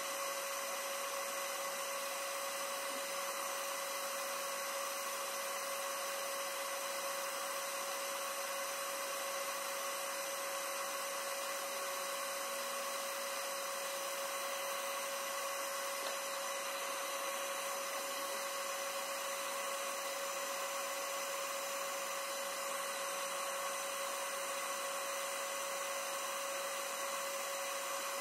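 A small electric motor running with a steady whine that holds one pitch.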